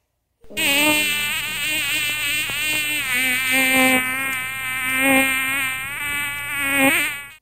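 A buzzing, fly-like drone with a wavering pitch that cuts in and cuts off abruptly, as an edited-in sound effect does.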